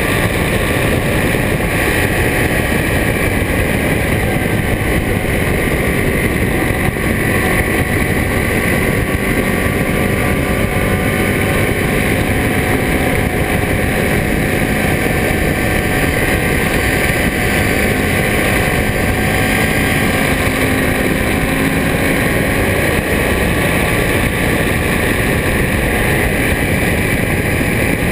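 Ducati Monster S4RS's 998 cc Testastretta V-twin running through Termignoni exhausts at a steady highway cruise, its note drifting gently up and down. Heavy wind noise on the microphone runs over it.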